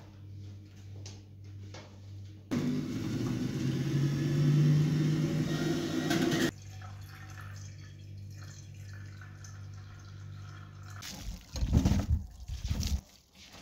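Water running or pouring for about four seconds, starting and stopping abruptly, over a low steady hum. Near the end come a few heavy low thumps.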